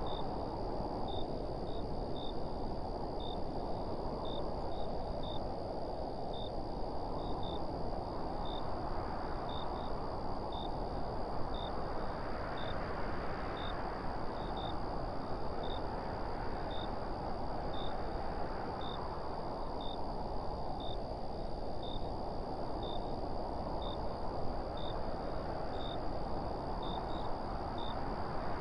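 Wind blowing steadily, swelling in slow gusts every few seconds and easing off again, with faint short high chirps repeating about once or twice a second.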